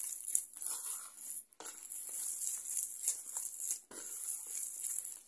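Hands kneading crumbly fine-bulgur and semolina dough in a plastic bowl: grainy rustling and rubbing in uneven strokes, with short pauses. This is the early stage of kneading içli köfte dough, while it is still loose and crumbly.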